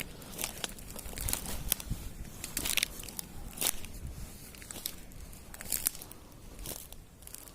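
Footsteps pushing through forest undergrowth, with twigs and vegetation crackling and rustling in irregular bursts.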